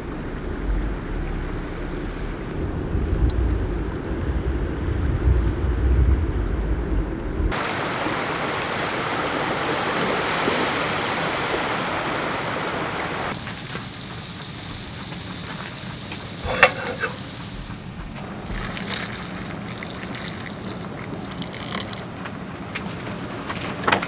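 Strong wind buffeting the microphone with a heavy low rumble. About seven seconds in it gives way to small sea waves washing on the shore as a steady hiss. From about thirteen seconds in come scattered light clicks and rustles of paper-lidded cup noodles being handled on a table.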